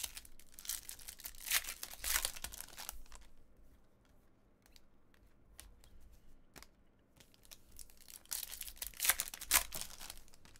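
Foil trading card pack wrappers torn open and crinkled by hand, in two bouts of a few seconds each, one at the start and one near the end. Between them come quieter scattered clicks and rustles as the cards are handled.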